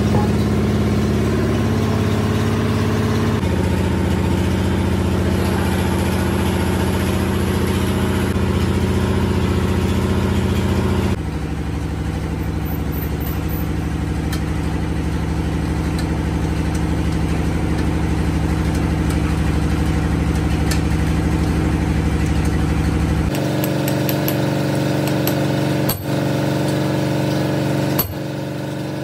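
A steady engine-like machine drone, its pitch shifting abruptly a few times. Near the end, two sharp metal hammer taps on a steel sleeve fitted over a drive shaft tube.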